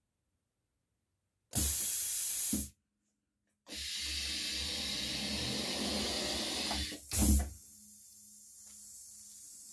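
Pneumatic heat press releasing compressed air as its timer runs out and it opens: a loud hiss for about a second, a pause, then a longer hiss for about three seconds ending in a short, louder blast. A faint low hum with small ticks follows.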